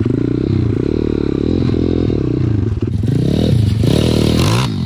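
Pit bike's single-cylinder four-stroke engine revving, its pitch rising and falling several times. Near the end a short rush of noise comes in as the bike rides through shallow water and splashes.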